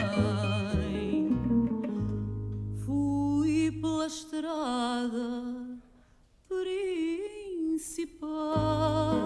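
A woman singing fado with a wide vibrato on held notes, accompanied by a Portuguese guitar and an acoustic guitar playing plucked bass notes. The music drops to a brief near-silent pause about six seconds in, then the voice comes back in.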